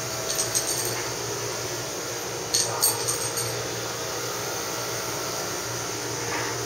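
Steady fan-like hum of room ventilation, with two short runs of light clicks and clinks, one near the start and one about halfway through.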